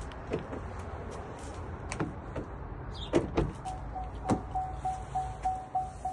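Car door and latch clunks and clicks on a 2026 Chevrolet Trax. About three and a half seconds in, the car's warning chime starts: a short beep repeating about three times a second.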